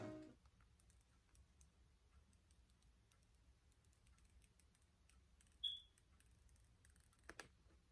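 Near silence with faint clicks and rustles of the paper screen wrap being peeled off an iPhone 12 Pro Max. A single short high squeak comes about five and a half seconds in, and two small clicks follow near the end.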